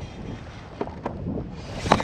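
Wind buffeting the microphone over choppy lake water, with a few light knocks and one sharp knock near the end.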